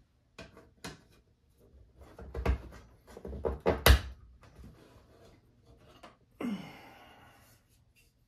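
3D-printed plastic display-stand parts knocking and clicking as they are handled and fitted together: a run of sharp knocks, the loudest about four seconds in, then a rough rustling scrape lasting about a second.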